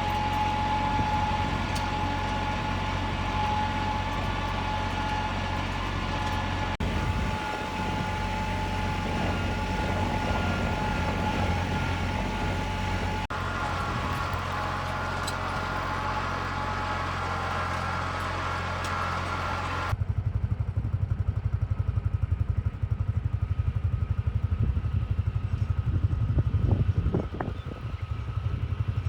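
Engine of the vehicle towing an old drag harrow over a dirt roadbed, running steadily under load. The sound shifts abruptly a few times, and in the last third the engine is louder and closer, with a quick throbbing beat.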